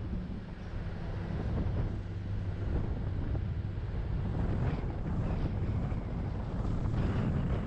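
Wind buffeting the microphone over the steady low rumble of a car driving along a sandy track.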